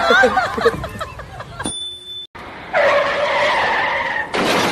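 Car tyre-skid sound effect: a steady squeal over hiss, lasting about a second and a half and cutting off sharply, coming after a short voice and a brief gap.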